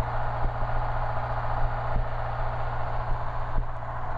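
1959 Cessna 150 taildragger's four-cylinder engine and propeller running steadily at low power, lined up on the runway just before the throttle is opened for the takeoff run.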